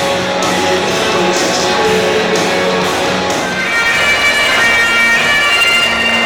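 Loud music over a stadium crowd's surroundings, pulsing with a steady beat at first. About three and a half seconds in it changes to long held high melody notes over a steady low drone.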